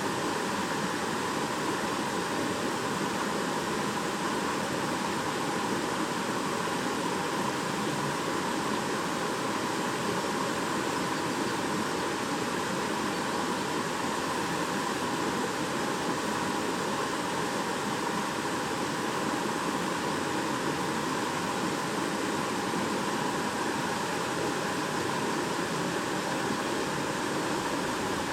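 Shallow babbling brook: water running over stones in a steady, even rush.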